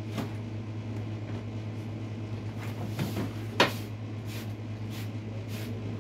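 A few scattered knocks and bumps of things being handled, the loudest about three and a half seconds in, over a steady low hum.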